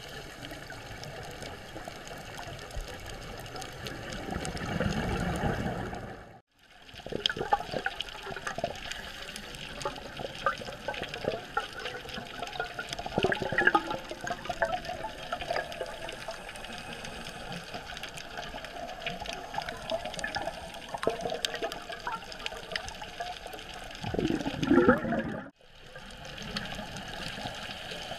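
Underwater ambience picked up by a diver's camera: a steady watery wash dotted with clicks and crackles, with louder swells of bubbling about a fifth of the way in and near the end, typical of a scuba diver's exhaled regulator bubbles. The sound cuts out briefly twice.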